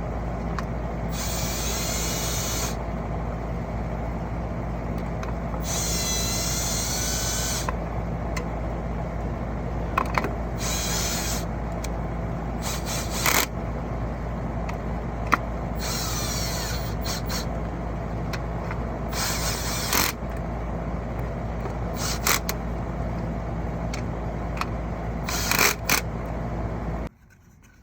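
Cordless power drill running in several short bursts of a second or two, speeding up and down as it drives the fasteners of the plate onto a new pool pump motor, with sharp clicks and knocks of the parts between bursts over a steady low hum.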